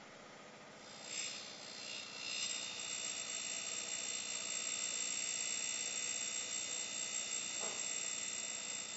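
DAREX E90 end mill sharpener's CBN wheel grinding the secondary clearance angle on an end mill's flute: a high-pitched, steady grinding whine with several tones that starts about a second in and stops abruptly near the end. A brief lower scrape is heard about three-quarters of the way through.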